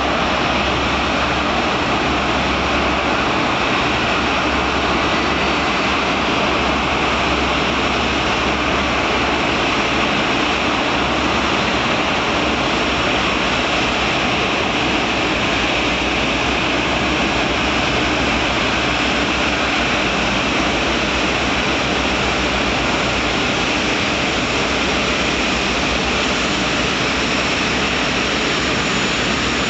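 Airbus A380's four turbofan engines running at taxi power as the airliner rolls slowly past: a loud, even jet rush with a faint high whine over it.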